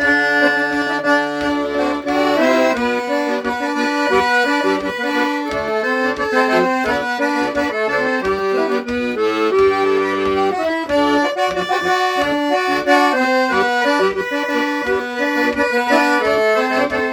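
Accordion (gaita) playing an instrumental break in a gaúcho song: a busy melody of quick notes over a steady pulsing bass, with no singing.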